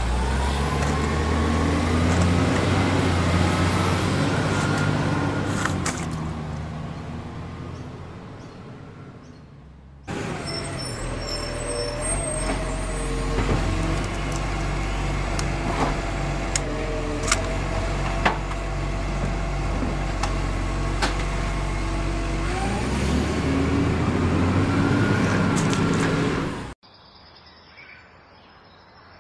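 A truck engine sound effect, running and revving, laid over the action in two spliced takes. The first fades away over about ten seconds. The second starts abruptly, rises in pitch near the end, and cuts off suddenly, leaving only faint outdoor background.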